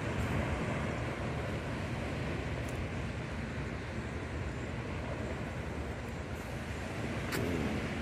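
Steady rush of small waves washing up a flat sandy beach, with a low rumble of wind on the microphone. A brief click comes about seven seconds in.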